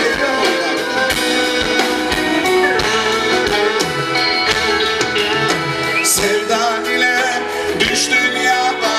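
Live band music amplified through a concert PA, with drums keeping a steady beat under keyboards and other pitched instruments.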